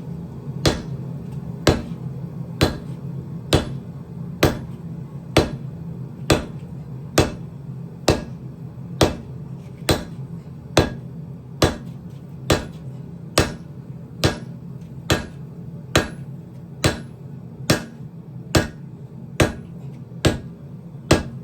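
Hammer blows on hot steel at the anvil while the axe head is forged: sharp strikes in a steady rhythm of about one a second. A steady low hum runs underneath.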